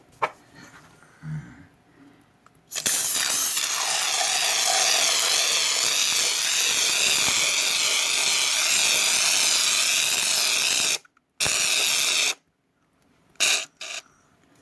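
Aerosol can of shaving cream spraying foam in a long, steady hiss of about eight seconds. A second short spray follows after a brief stop.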